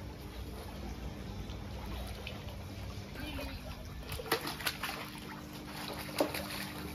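A hooked freshwater pomfret thrashing at the surface as it is reeled in to the bank. It splashes sharply several times in the second half, loudest a little over six seconds in, over a steady low hum.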